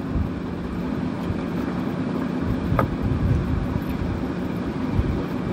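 A steady low hum over a constant background rush, with one brief rising chirp about halfway through.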